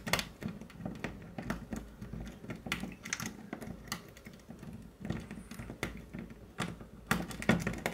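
Paper-clip pick and tension tool working in a window lock's pin-tumbler keyway: irregular light metallic clicks and scrapes as the pins are picked, with a quick run of clicks near the end.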